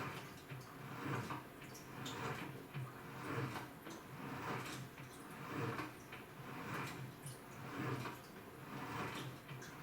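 AQUA washing machine with a direct-drive inverter motor churning its load in water: swishing, sloshing swells about once a second as the drive turns back and forth.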